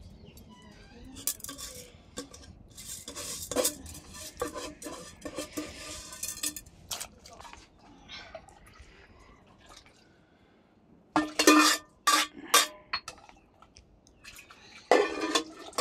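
Metal cooking pots and utensils clattering and scraping, with a cluster of loud, sharp clanks about eleven seconds in and more near the end.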